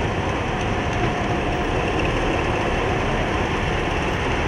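A column of wheeled farm tractors' diesel engines running steadily as the tractors drive past in a slow convoy.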